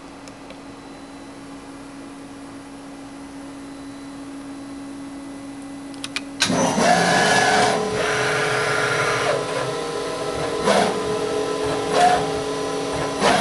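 1991 Bridgeport Interact 412X CNC vertical machining center with a steady hum, then a couple of button clicks about six seconds in as the cycle is started. The machine comes to life with a sudden loud whirring and settles into a steady whine as it runs its drill/tap program. Several short clunks come about a second and a half apart near the end.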